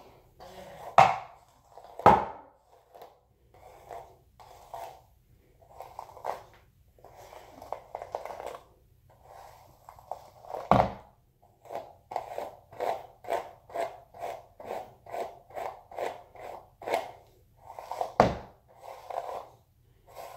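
A bristle hairbrush dragged through dry, curly hair in repeated short scratchy strokes, coming faster, about two a second, in the second half. A few sharp knocks stand out above the brushing.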